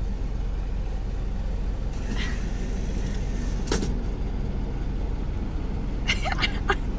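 A car's low, steady rumble heard from inside the cabin while it idles or creeps forward in a drive-thru line, with a single sharp click about halfway through and a few quick clicks near the end.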